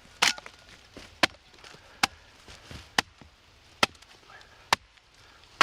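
Hewing axe chopping into a log, sharp wooden strikes about once a second, seven in all, as the log face is hewn down in thin cuts.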